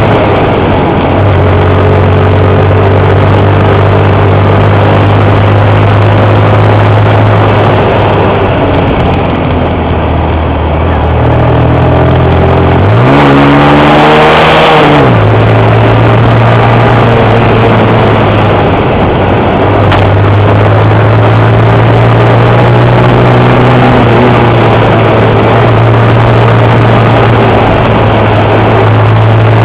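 Honda Cub's small single-cylinder four-stroke engine running under way on a winding road, with a steady hiss of wind and road noise. About halfway through the engine note climbs sharply for a couple of seconds as it revs, then settles back to a steady pull.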